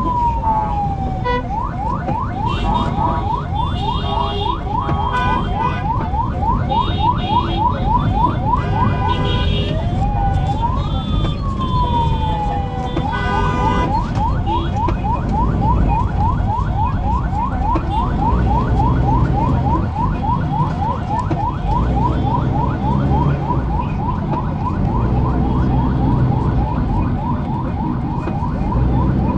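Emergency-vehicle siren in slow city traffic. It gives a rising and falling wail near the start and again about ten seconds in, and otherwise a fast yelp of about three sweeps a second, over the low rumble of traffic. Several horn blasts sound in the first ten seconds.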